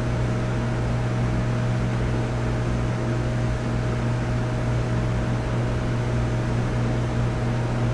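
Steady low hum with an even hiss over it and a faint thin tone above the hum, unchanging throughout.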